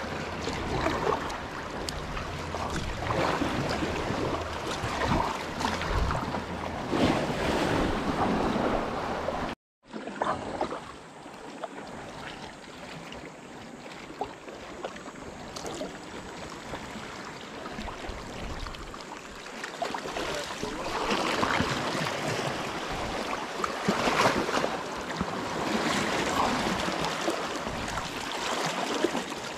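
Sea kayak being paddled, with paddle blades dipping and splashing in a rhythm of about one stroke every two seconds and water rushing along the hull. Wind buffets the microphone for the first ten seconds. The sound cuts out completely for a moment just before ten seconds in.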